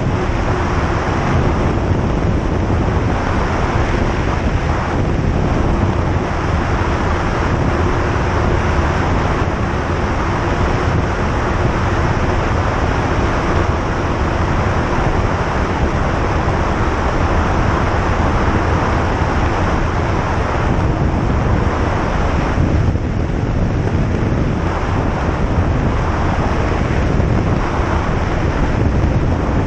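Single-engine light aircraft's engine and propeller running steadily, heard inside the cockpit as an even drone mixed with airflow noise.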